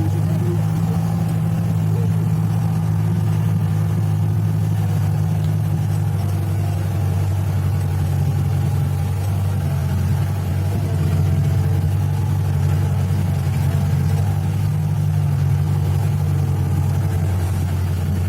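Motor vehicle engine running steadily with a low, even hum.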